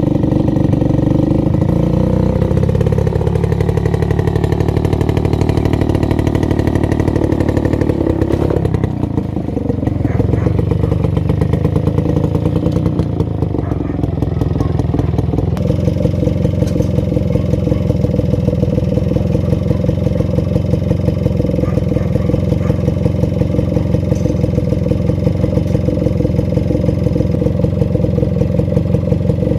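Small motorcycle engine running steadily while riding, its pitch dropping about two seconds in and easing down and back up again around nine seconds, with a shift in the engine note about fifteen seconds in.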